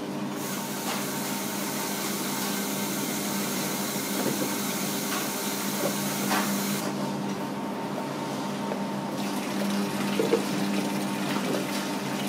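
Water rushing into a coin-laundry washing machine over a steady hum of running machines; the flow cuts off abruptly about seven seconds in and resumes more faintly a couple of seconds later. A few light knocks from handling the machine and clothes.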